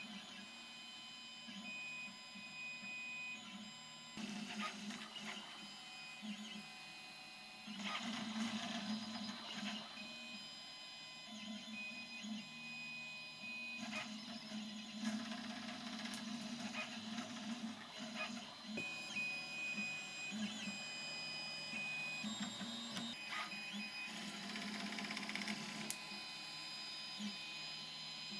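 CoreXY 3D printer running, its stepper motors whining in short tones that start, stop and change pitch with each move of the gantry.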